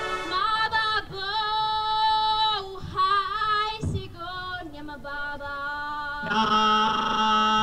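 A solo female voice singing a slow melody with sliding, wavering notes. About six seconds in, the marching band's brass comes in under it with a loud held chord.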